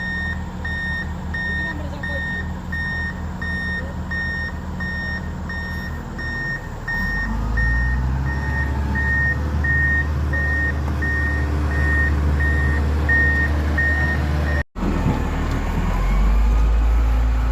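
Heavy road machine's reversing alarm beeping about twice a second over its running engine. The engine grows louder about seven seconds in, and the beeping stops near the end while the engine keeps running.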